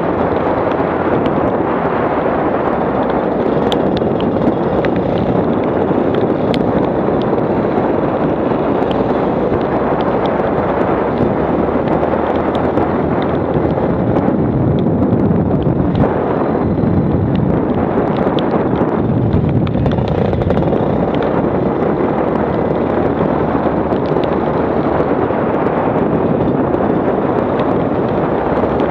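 Go-kart engine running during a lap, heard through loud, steady wind buffeting on the onboard action camera's microphone, with scattered sharp clicks.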